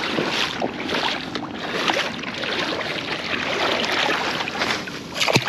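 Water splashing and sloshing as a striped bass, held by the lip in shallow water, thrashes its tail while being released, with one sharper, louder splash about five seconds in.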